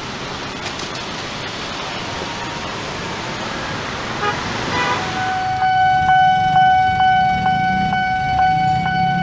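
Road traffic at a busy crossing with a few short car-horn toots. About five and a half seconds in, a Nippon Signal electronic railway-crossing alarm starts ringing, a bright ding repeated about twice a second over the traffic, signalling that a train is approaching.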